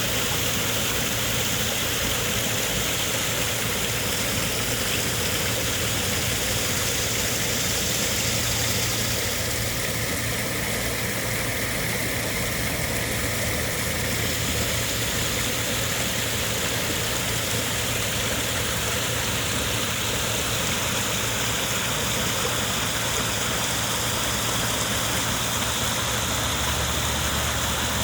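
Waterfall: a steady, unbroken rush of falling water with a low rumble underneath.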